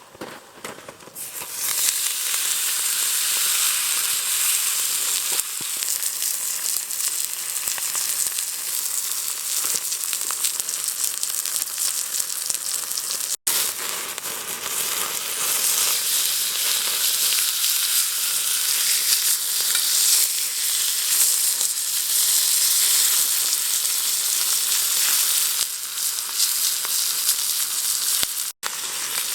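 Steak sizzling on a hot iron griddle plate over a wood fire, a dense, even frying hiss that starts about a second and a half in and breaks off for an instant twice.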